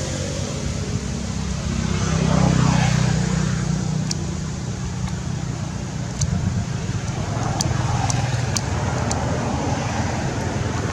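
An engine running steadily with a low hum, with a few sharp clicks in the middle.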